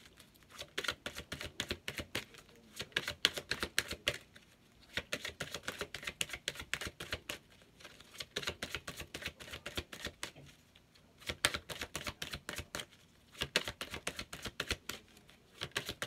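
A deck of oracle cards being shuffled by hand: rapid trains of card clicks and flicks in bursts of a second or two, with short pauses between them.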